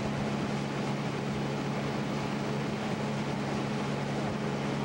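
Outboard motor of a small boat running steadily under way, a constant low drone.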